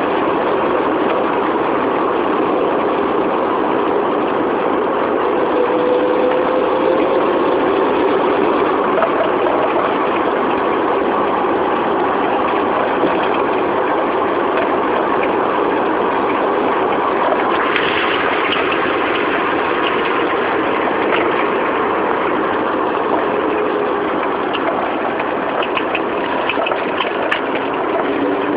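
Proton Saga 1.5-litre four-cylinder engine running, with a faint whining tone whose pitch drifts slowly. This is the weird spinning noise the owner hears when accelerating, cause not yet known. A few light clicks about two-thirds of the way in and near the end.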